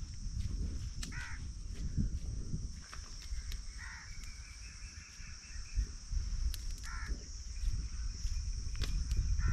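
A crow cawing several times, single calls a few seconds apart, over a steady high-pitched drone and low rumble.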